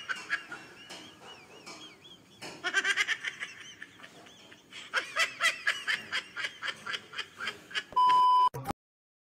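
A child giggling in short bursts, then about eight seconds in a steady high TV test-tone beep lasting about half a second, which cuts off suddenly into silence.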